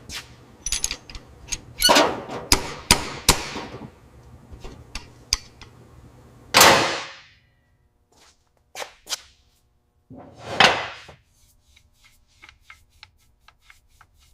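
Irregular sharp metallic knocks and clicks of tools and engine parts being handled, with a cluster of louder knocks around two to three and a half seconds in. Two longer, louder noisy scrapes come about six and a half and ten and a half seconds in.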